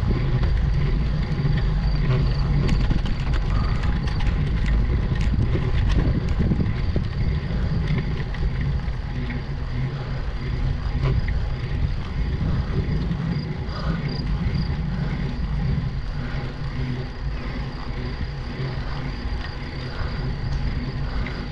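Crickets chirping steadily over a steady low rumble from the road bike climbing.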